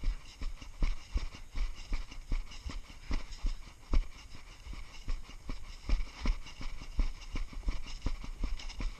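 Footsteps at a walking pace, a few heavy thuds a second close to the microphone.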